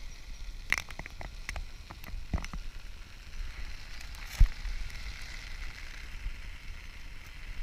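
Muffled clicks and knocks heard through a waterproof camera housing, with one sharp thump about four and a half seconds in, over a steady hiss.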